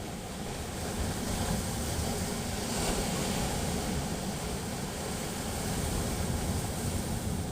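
Sea waves surging and breaking on the shore, a rushing noise that swells about a second in and holds.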